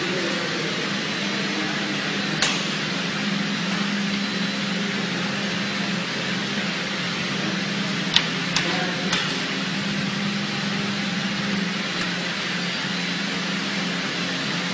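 Steady whir and hiss of an LED power-supply aging-test line, with cooling fans and machinery running and a low hum underneath. A few sharp clicks or knocks come once about two seconds in and three times close together a little past the middle.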